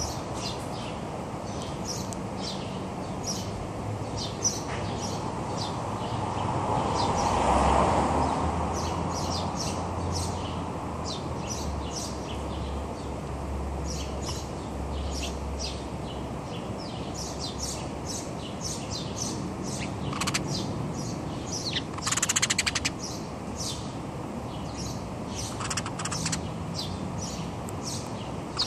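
Small birds chirping over and over, short high calls coming thick and fast, with rapid buzzy chattering about two-thirds of the way in. Steady street background noise sits underneath and swells louder for a few seconds about seven seconds in.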